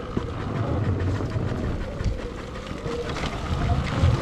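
Riding a Sur-Ron electric dirt bike: wind noise on the microphone over a steady rumble, with a faint wavering whine from the electric motor.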